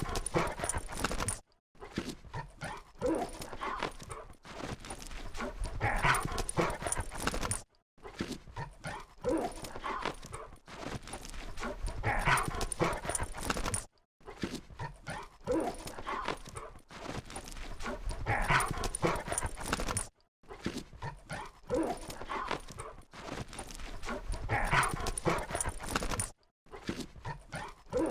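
Labrador retrievers playing together: busy scuffling with dog whimpers and sounds. The sound breaks off briefly about every six seconds, and the same stretch seems to repeat.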